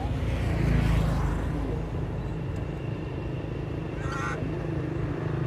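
A macaque gives a short, wavering squeal about four seconds in, over the steady low hum of a motor engine running nearby.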